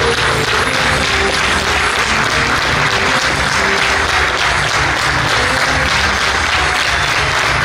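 A theatre audience applauding steadily for the actors' curtain call, with music playing underneath.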